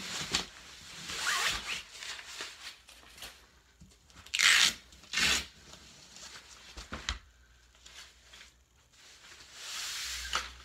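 Fabric carry bag and padded mattress of a Graco Pack 'n Play being pulled and unfolded: nylon rustling and rubbing in irregular bursts, loudest about four to five seconds in, with a few light knocks.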